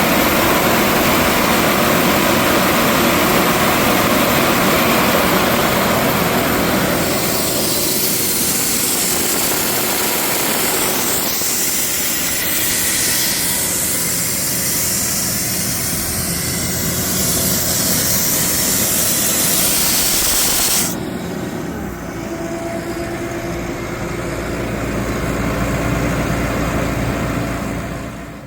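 Sullivan 375 CFM portable air compressor with its John Deere 4045 four-cylinder diesel engine running, with compressed air blowing off in a loud, steady hiss that shows it is making air. About three quarters of the way through, the hiss cuts off suddenly, leaving the diesel engine running with a low, steady hum.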